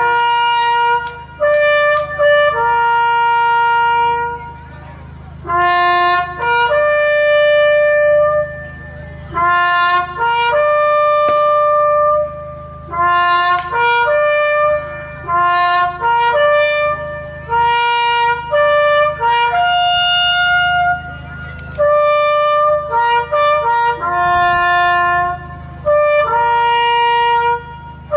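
Solo trumpet playing a slow ceremonial call for a moment of silence: a single line of long held notes in phrases, with short breaks between them, over a steady low hum.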